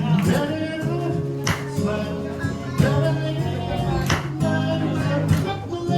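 Live acoustic guitar strummed in a steady rhythm, with a voice singing over it.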